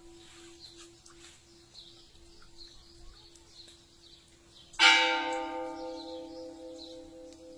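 Church bell tolled for a death: a single loud stroke about two-thirds of the way in, its ringing fading slowly, following the dying hum of the stroke before.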